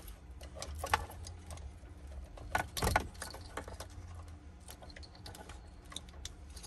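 Plastic wiring-harness connectors and cables rattling and clicking as they are handled and fitted together, a scatter of small clicks with a denser cluster about three seconds in.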